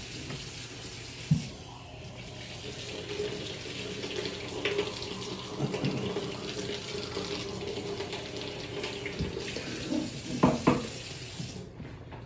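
Water running from a tap into a sink for about ten seconds as a steady rush, with a sharp knock about a second in and a few louder clunks near the end before it stops.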